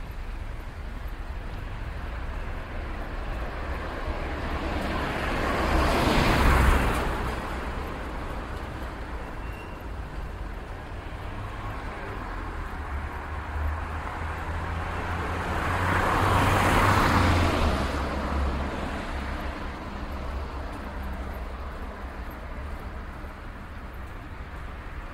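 City street traffic: a steady low rumble of engines, with two vehicles passing close, one about six seconds in and another about seventeen seconds in, each rising and fading away.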